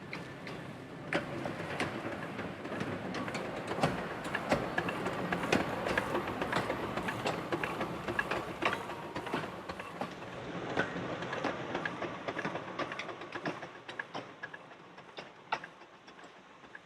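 Small 19-inch gauge passenger train passing, its wheels clicking irregularly over the rail joints. It grows louder, then fades away after about 13 seconds.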